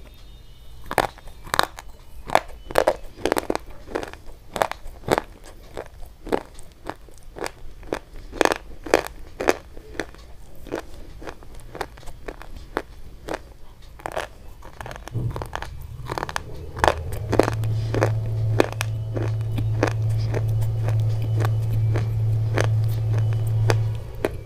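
Close-up biting and crunching of brittle white chalk-like sticks: a long series of sharp crunches, about two a second at first. From about two-thirds of the way through, a low steady hum joins the crunches and stops just before the end.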